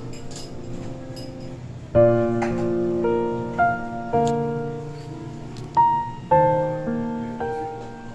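Background piano music: a soft held chord, then struck notes and chords from about two seconds in, each fading after it is played.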